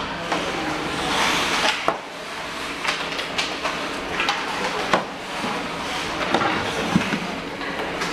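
Ice hockey practice on the rink: scattered sharp clacks of sticks striking pucks and the ice, over a steady hiss of skates scraping.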